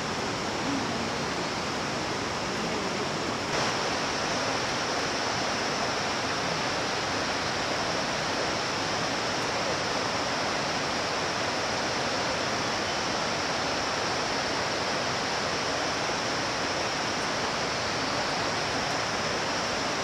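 Steady, even rushing noise with a brighter high hiss, with no distinct strokes or knocks; it steps up slightly about three and a half seconds in.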